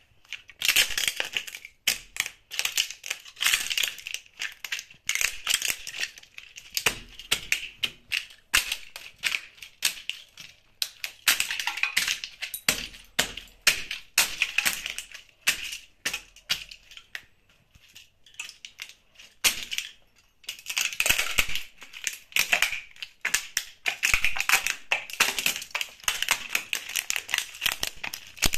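Plastic model aircraft cracking and crunching under espadrille wedge sandals: many sharp snaps and crackles in quick succession, with a brief lull about two-thirds of the way through.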